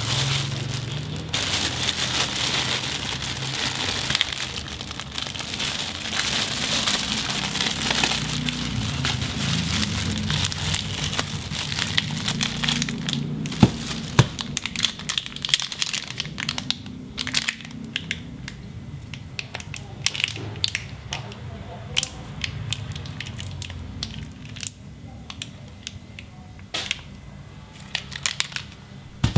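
Thin plastic packaging bags crinkling and crackling as hands unwrap the monitor's cables and accessories. The crinkling is dense for about the first half, then thins to scattered crackles and clicks, over a low steady hum.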